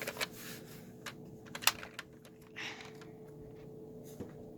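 Scattered plastic clicks and rattles of a Nerf blaster being handled and loaded one-handed, with a sharper click about a second and a half in.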